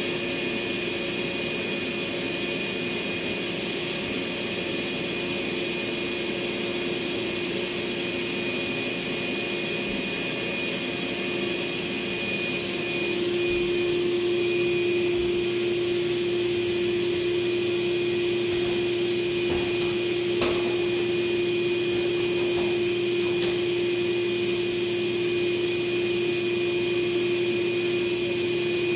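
DeWalt portable wet/dry vacuum running steadily with a constant motor hum, which gets louder about a third of the way in.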